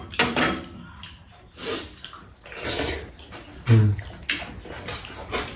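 Eating sounds at a meal: spoons and forks clicking and clinking against bowls and a metal tray, with wet slurping and chewing of noodles. A short voiced grunt or hum just under four seconds in is the loudest sound.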